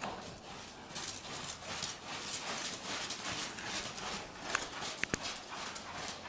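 A ridden horse's hoofbeats on loose sand-and-dirt arena footing, a run of dull thuds that gets louder about a second in as the horse moves off kicking up dust. A couple of short high squeaks come near the end.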